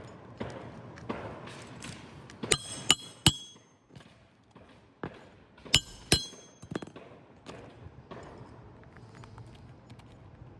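Metal roofing tool clinking sharply with a short ring, three times quickly about two and a half seconds in and twice more about two seconds later. Around the clinks is scraping and rustling of asphalt shingles being pried up and handled.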